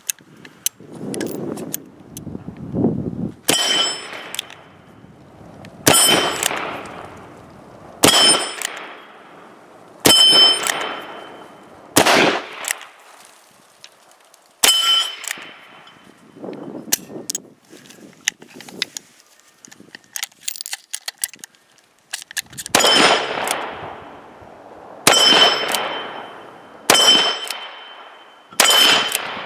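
Ruger New Model Blackhawk revolver firing 9mm through its conversion cylinder: six shots about two seconds apart, each followed by a metallic ring. After a pause of several seconds, about four more shots come near the end.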